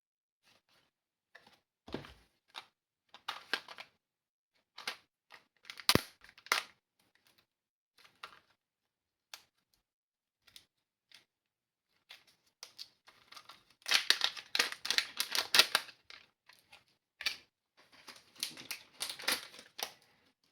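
Small parts and their packaging being handled: scattered sharp clicks and short crinkling rustles of packaging, with longer spells of rustling past the middle and near the end.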